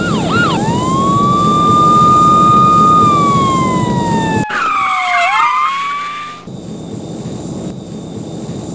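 Cartoon police siren: a couple of quick yelps, then a long wail that rises, holds and slowly falls, over the steady rush of a jet engine that fades down after about six seconds.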